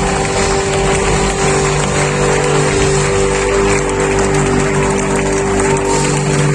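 Live rock band playing held chords, heard from within the audience at a loud, steady level without singing.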